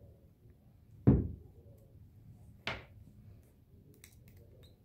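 Two thumps about a second and a half apart, the first louder and deeper, from handling a spindle motor and vacuum chuck assembly while its mounting screws are tightened with an Allen wrench. A few faint light clicks near the end.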